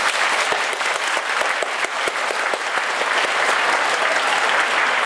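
Audience applause: many hands clapping together in a dense, even patter.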